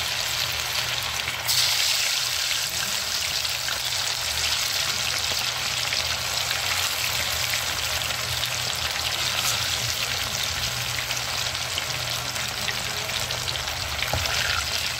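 Marinated chicken pieces deep-frying in hot oil in an iron kadhai: a steady sizzle that jumps louder about a second and a half in.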